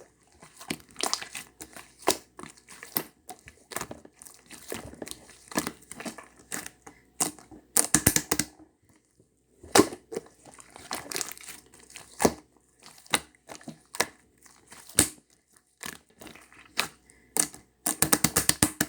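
Irregular sharp clicks and crinkling handling noise, with quick runs of rapid clicks about eight seconds in and again near the end.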